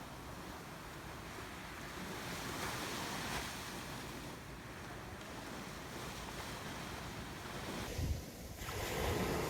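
Ocean waves breaking and washing in, a steady surf noise that swells louder about three seconds in and again near the end.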